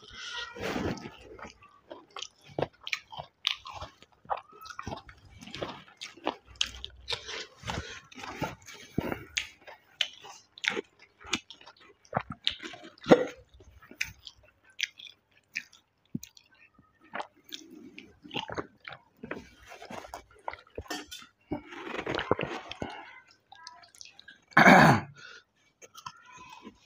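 Close-up chewing, lip-smacking and mouth sounds of a man eating rice and mutton curry by hand, with a sip from a steel tumbler about halfway through. A single loud, short noise stands out near the end.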